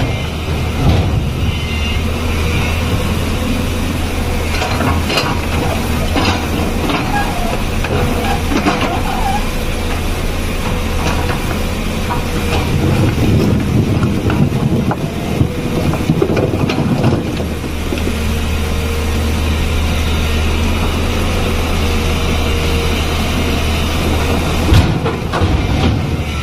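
Tata Hitachi EX215 hydraulic excavator running steadily under load with a low engine hum, while its steel bucket digs and scrapes through loose rock, with repeated clanks and knocks of stone on steel that are busiest through the middle.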